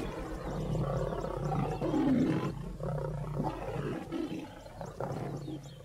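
Lions of a pride growling as they fight each other over a kill; the noise fades toward the end.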